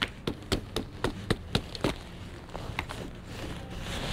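Shoe-shine brush worked quickly over a leather shoe: a fast run of short strokes, about four to five a second, that thins out to a few scattered strokes about two seconds in.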